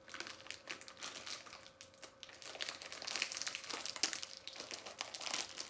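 Plastic snack bag crinkling as it is handled and pulled at in an effort to tear it open, busier and louder in the second half.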